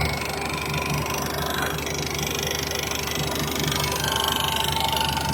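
Running JCB engine with its hydraulic pump making an abnormal noise: a steady mechanical whine over the engine's low drone. This is the sign of a hydraulic pump noise problem.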